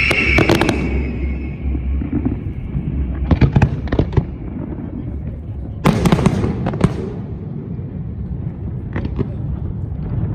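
Aerial fireworks: a falling whistle fades out in the first second, then clusters of sharp bangs and crackling shells go off. The loudest burst comes about 6 seconds in, and a few scattered pops follow near the end, over a steady low rumble.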